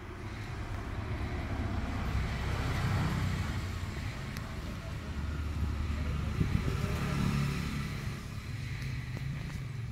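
Low engine rumble of a passing motor vehicle, swelling over the first few seconds and easing off near the end.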